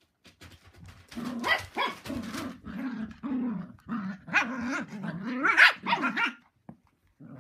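Cocker spaniels growling and barking in play, a broken run of growls and barks starting about a second in and stopping near the end.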